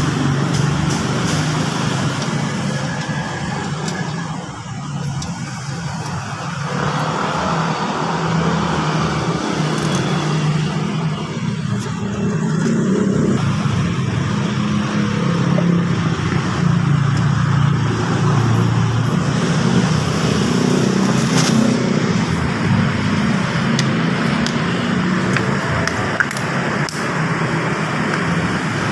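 Motor vehicle engine noise, a steady low hum that wavers in pitch and level, briefly quieter about five seconds in.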